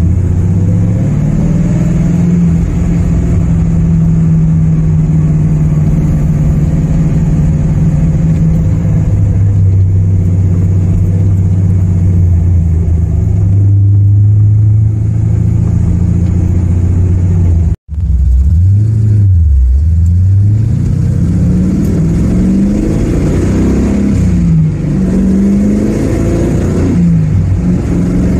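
A 1972 Corvette C3's LT-1 V8 runs steadily while driving, heard from inside the car. After a brief dropout about two-thirds of the way through, the revs climb and fall back several times as the car accelerates.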